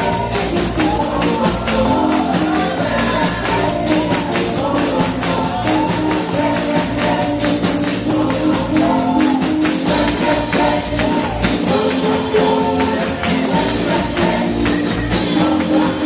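Congregation singing a lively gospel praise song, with tambourines jingling and hands clapping to a steady beat.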